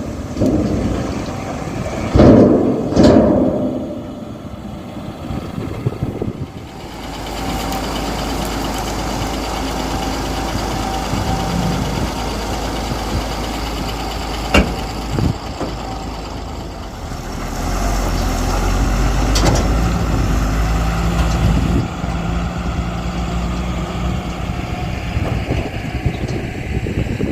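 Heavy diesel machinery, the backhoe loader or the tipper truck, running steadily. There are two loud knocks in the first few seconds, the engine sound gets fuller from about seven seconds in, and there is one sharp knock about halfway.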